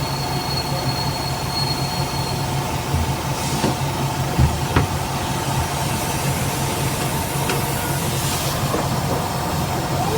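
Mercedes-Benz OF 1721 bus under way, its diesel engine running with a steady whine-like growl from the rear differential. A thin high whistle sounds for the first couple of seconds, and short hisses come about three and a half and eight and a half seconds in.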